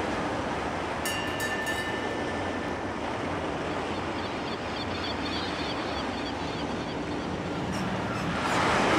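A steady rushing wash of noise, with a faint high tone about a second in and faint repeated high chirps in the middle. The noise swells near the end.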